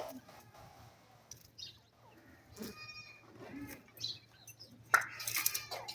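A parrot making a few short, faint calls with quiet gaps between them, then a louder call about five seconds in.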